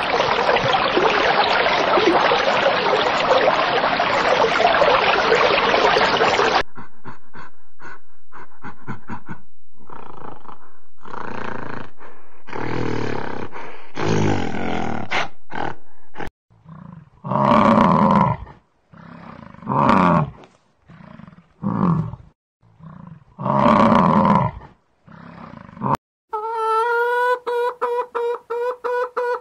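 A steady rush of water runs loud and cuts off about six seconds in. After some faint scattered noises, a gorilla gives a series of deep roaring grunts, each about a second long. Near the end chickens cluck, with a drawn-out, wavering call over the clucks.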